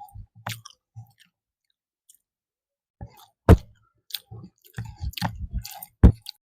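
Close-miked chewing and mouth sounds of someone eating, in irregular bursts. There is a pause of a couple of seconds, then a run of chewing with sharp clicks, the loudest about halfway and near the end.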